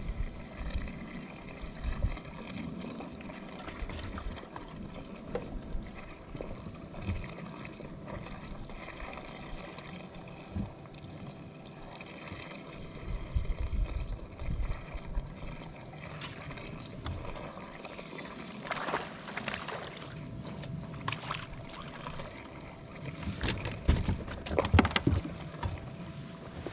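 Water trickling and splashing beside a small fishing boat, with scattered low knocks; two spells of louder splashing, about two-thirds of the way through and again near the end.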